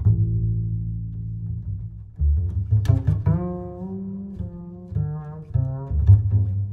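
Background music: a deep bass line with plucked, pitched notes.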